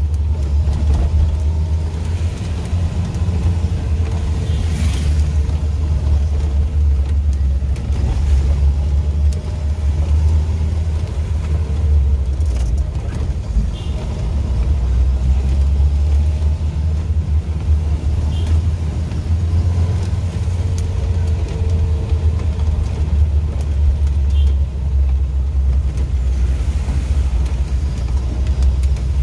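Maruti Suzuki Gypsy King driving on wet streets, heard from inside the cabin: a steady low rumble of engine and road noise.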